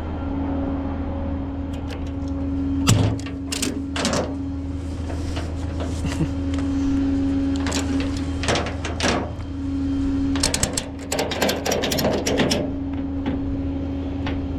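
A tow truck's engine runs with a steady hum, while scattered metallic clicks and clatter come in a few quick runs.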